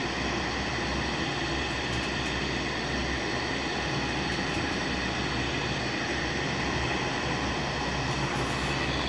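Industrial sewing machine's electric motor running steadily, a constant even hum with a few faint ticks.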